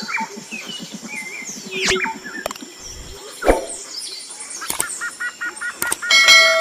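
Intro sound effects: jungle bird calls and chirps, then near the end a sharp click and a ringing bell chime for a subscribe button and notification bell.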